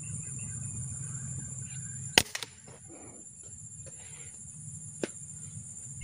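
Air rifle firing once about two seconds in, a sharp crack with a quick knock or two right after it, over the steady high drone of insects. A fainter single click comes about five seconds in.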